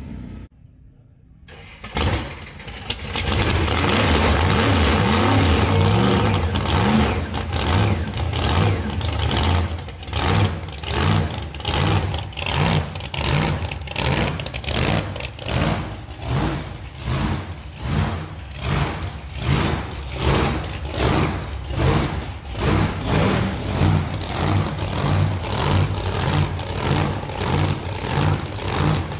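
Supercharged V8 of a pro-mod drag car fires up about two seconds in and runs at a high, steady idle. It then settles into a lumpy, loping idle that swells and fades about every three-quarters of a second.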